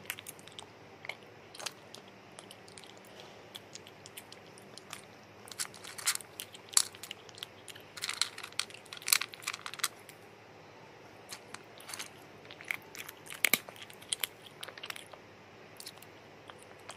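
A rat gnawing and chewing a piece of pumpkin: short, irregular crisp crunches and clicks from its teeth, coming in clusters with quieter gaps between.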